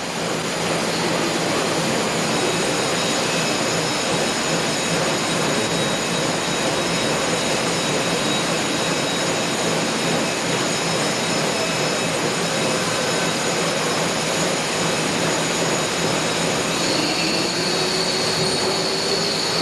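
Steady din of factory machinery on a manufacturing floor: an even mechanical rush with thin high whines over it. A stronger high whine and a slowly rising lower tone join near the end.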